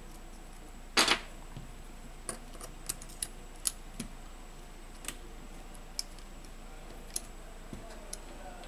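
Small sharp clicks and taps of a smartphone's main board and metal tweezers being handled and pressed into the phone's frame, about a dozen scattered clicks with a louder double click about a second in.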